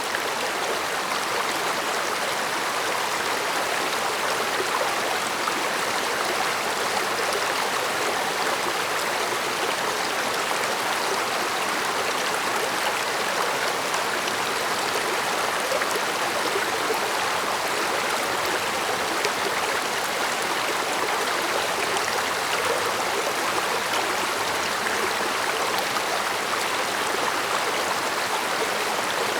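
A mountain stream running with a steady, even rush of water that does not change.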